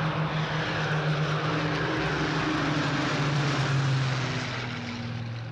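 Piston-engine propeller aircraft in flight: a steady engine drone that fades somewhat over the last second or so.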